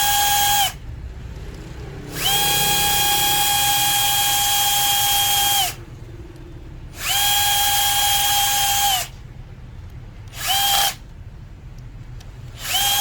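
Electric screwdriver driving screws: its motor runs with a steady-pitched whine in five separate runs, the longest about three and a half seconds and one only half a second, each starting and stopping quickly.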